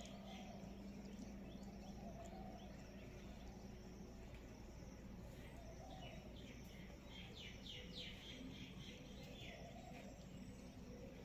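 Faint background birds chirping over a steady low hum, with a run of quick high chirps in the middle.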